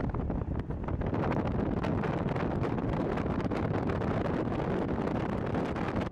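Wind buffeting the microphone: a steady rough rumble with many small crackles.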